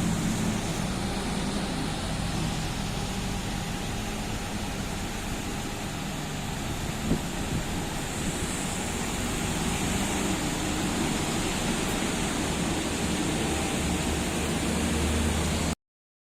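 Steady machine or vehicle noise: a low hum under an even hiss, with a single sharp click about seven seconds in. The sound cuts off abruptly near the end.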